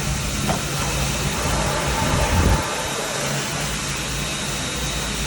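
Worthington 6-SA feedwater heater hot water pump on a steam locomotive, a steam-driven pump running with a steady low mechanical hum and pulse, with one heavier low surge about two seconds in.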